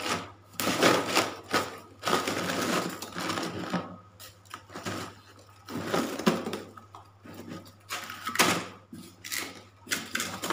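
Plastic bags of frozen fish crinkling and rustling in a styrofoam box packed with ice, while a knife cuts and scrapes at them. The rustling comes in irregular bursts, with a few sharp taps.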